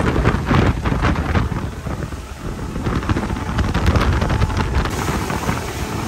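Wind buffeting the microphone on a boat running at speed across open water, a heavy uneven rumble, with the boat's engine and rushing water underneath.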